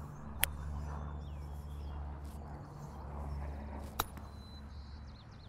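A 58-degree wedge striking a golf ball on a chip shot: one sharp click about four seconds in, after a fainter click near the start, over a low steady outdoor hum.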